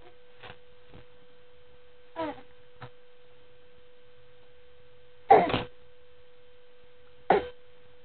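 A baby making short grunts and vocal noises, a few separate sounds with the loudest about five seconds in, over a steady faint hum.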